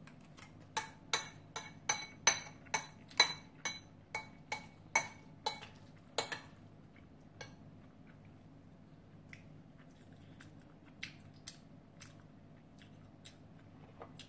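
Metal spoon clinking against a bowl again and again, about two or three ringing clinks a second, as soup and noodles are scooped up. The clinking stops about six seconds in, leaving a few faint clicks.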